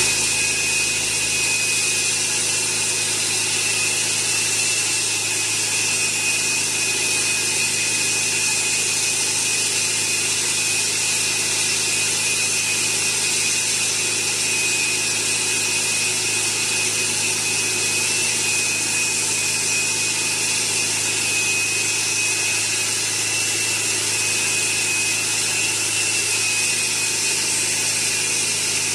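Diamond-blade concrete saw cutting through a reinforced-concrete wall, running steadily under load: an even grinding noise with a constant high whine and a low motor hum.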